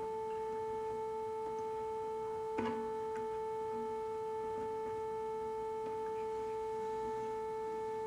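Ambient music: a single held drone note, steady and unchanging, with a fainter tone an octave above it, and one soft plucked note about two and a half seconds in.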